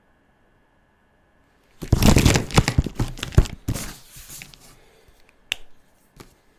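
Crinkling, crackling rustle of something being handled, loud for about two and a half seconds and then fading, followed by two light clicks.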